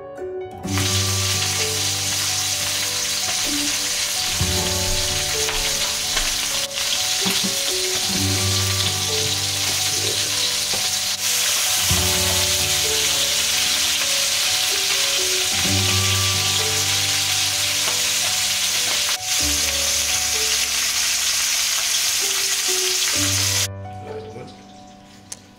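Chicken ballotine searing in a frying pan, sizzling steadily; the sizzle cuts off suddenly near the end. Background music with a repeating low pattern runs underneath.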